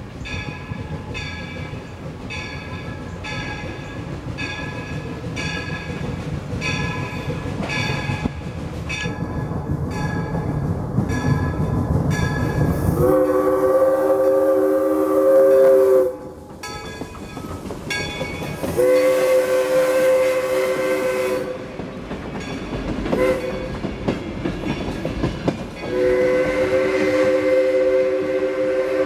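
A replica 4-4-0 steam locomotive drifts closer, its low rumble growing under a bell that rings steadily at about one and a half strokes a second. Then its chime steam whistle, a chord of three notes, sounds long, long, short, long: the grade-crossing signal.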